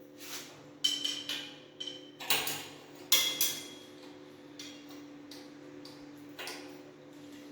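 Metal tools and fittings clinking and tapping, about seven times in the first three and a half seconds, some with a short metallic ring. A steady low hum runs underneath.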